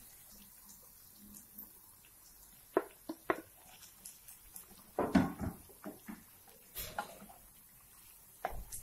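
A spatula knocking and scraping against a frying pan while meat and chopped green capsicum are stir-fried: scattered knocks, with the loudest cluster about five seconds in.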